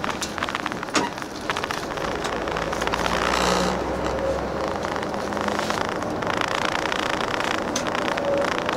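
Inside a moving limousine bus: steady engine and road noise with many small rattles and clicks. There is a sharper click about a second in and a swell of louder noise around three to four seconds in.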